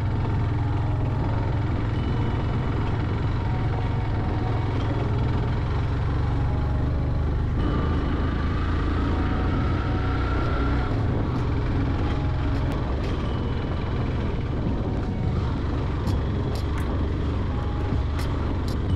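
Yamaha motorcycle's engine running steadily under way, with a constant low rumble.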